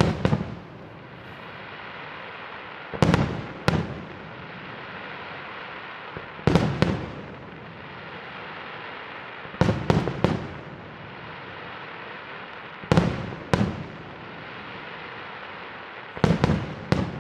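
Aerial firework shells bursting overhead in sharp bangs that come in groups of two or three, one group about every three seconds, with a steady hiss between the groups.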